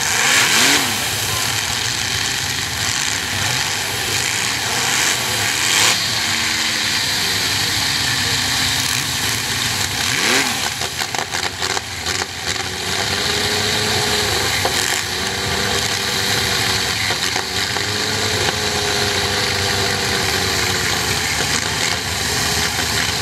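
Hot saw engines (racing chainsaws powered by motorcycle and car engines) running loud and rough and being revved, the pitch rising and falling near the start and again about ten seconds in. Around the middle the sound cuts in and out rapidly for a couple of seconds.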